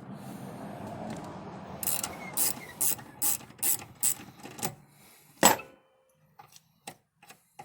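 Ratchet wrench clicking in short strokes, about two to three clicks a second, while loosening the nozzle cap nut of a first-generation Cummins Bosch injector held in a vise. One louder, sharper click comes about five and a half seconds in. A steady hiss fills the first two seconds.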